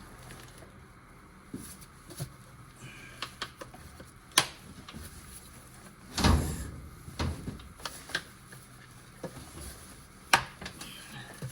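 Scattered clicks and knocks of the Yaris's air filter housing cover being worked onto its hinges and pressed into place, with sharp knocks about four and ten seconds in and a heavier thump about six seconds in.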